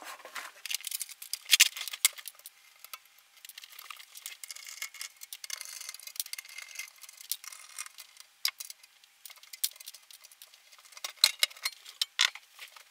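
Scattered small metallic clicks, taps and rattles as the preamplifier's perforated sheet-metal cover and its screws are handled and taken off the chassis.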